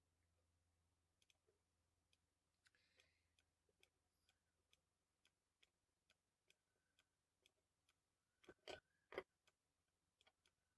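Faint computer mouse clicks, about two a second, with a short run of louder clicks near the end.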